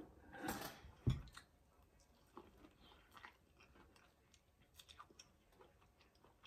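Biting and chewing corn on the cob close to the microphone, with scattered small mouth clicks. There is a brief rustle about half a second in and a low thump just after a second, which is the loudest sound.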